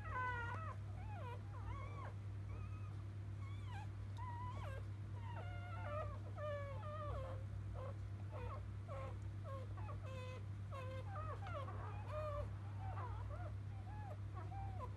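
Newborn Labrador Retriever puppies squeaking and whimpering: many short, high, wavering cries one after another, over a steady low hum.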